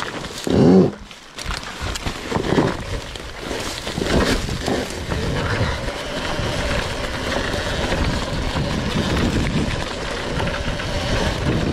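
RFN electric dirt bike ridden slowly over a rough bush trail: rustling, scraping and knocking of the tyres and chassis over dirt, grass and rocks. A faint steady whine from the electric drivetrain comes in during the second half, and there is a short loud hum about half a second in.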